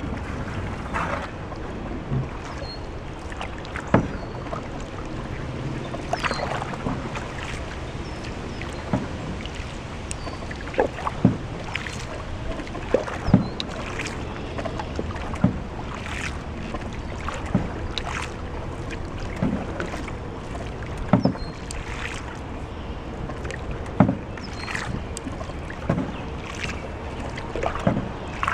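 Canoe being paddled: the paddle splashes and knocks with each stroke, a sharp short sound every second or two, over a steady hiss of moving water.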